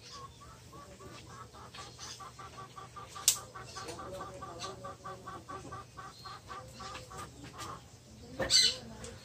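A hen clucking in a quick even run, about five clucks a second. A short sharp rustle comes about three seconds in, and a louder one near the end.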